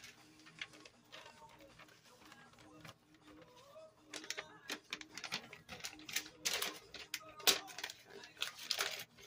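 Sheets of paper rustling and crinkling as they are handled and laid over a spray-painted poster to cover it. Scattered light taps run through, with a couple of louder rustles in the second half.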